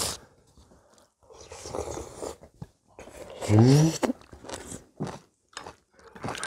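People eating at a table with spoons and chopsticks: chewing and soft mouth noises, with small clicks of utensils against bowls. About three and a half seconds in, a short low voice rises in pitch.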